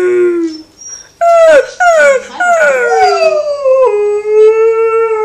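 Alaskan malamute howling: a run of short howls that each fall in pitch, then one long, steady howl held near the end.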